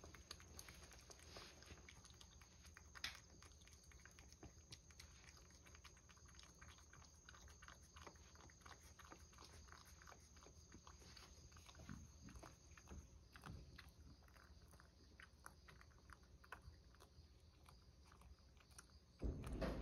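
A cat licking and chewing Churu treat paste from a bowl: faint, irregular wet clicks throughout. A much louder noise starts just before the end.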